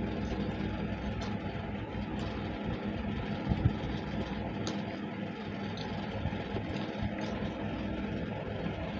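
A steady, machine-like background hum, with scattered soft clicks and smacks of people chewing rice and chicken curry eaten by hand.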